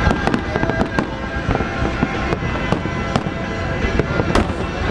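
Aerial fireworks going off: frequent sharp bangs and crackles over a steady low rumble, the sharpest bang about four seconds in.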